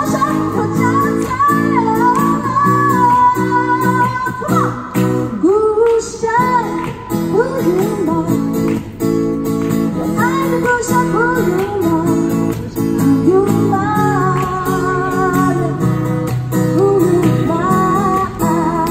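A street-busking duo: a woman singing, with a wavering vibrato on her held notes, over a strummed acoustic guitar.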